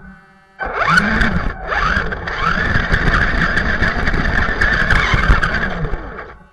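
RC truck's motor and gears whining, pitch rising and falling with the throttle in several swells, over a crackle of tyres on the ground. It starts after a brief pause and fades out near the end.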